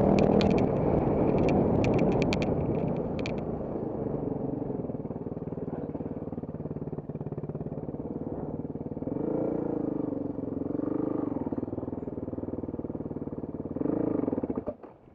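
Off-road trail motorcycle engine running on a stone and dirt track, with sharp clicks and clatter in the first few seconds as the revs drop away. The engine picks up twice about two-thirds of the way in, revs once more near the end and then cuts off suddenly.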